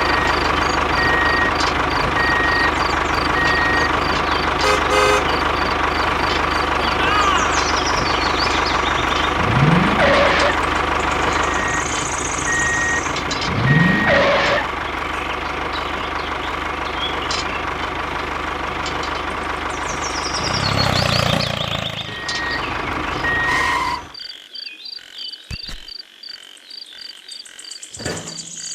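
A truck engine runs steadily, with intermittent reversing beeps and two rising revs. The sound cuts off abruptly near the end.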